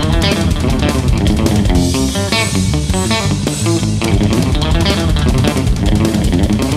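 Budget Cort Stratocaster-style electric guitar played through an amplifier in quick passages with many fast note changes. Its tone is thin and tin-can-like with many stray overtones, lacking fullness and clarity, as the player judges this guitar.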